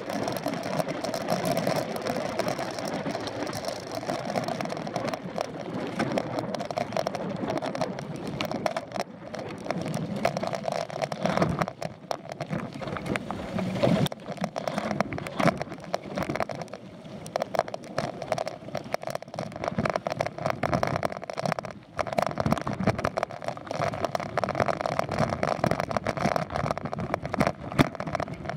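Bike rolling along a dirt trail, heard through a handlebar-mounted camera: steady noise of knobby tyres on dirt, with frequent small rattles and knocks from the bike and mount over bumps.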